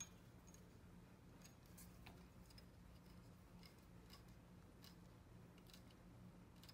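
Near silence: a low steady hum with faint scattered clicks, as hands handle the valve and fittings of a CO2 gas cylinder.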